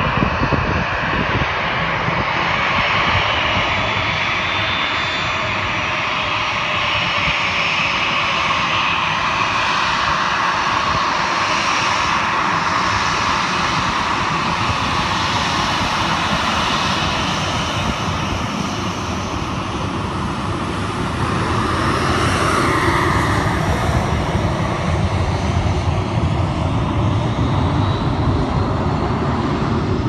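A Southwest Boeing 737's twin jet engines as it lands and rolls past along the runway, a steady loud jet rumble and hiss that swells a little past the middle. Wind buffets the microphone throughout.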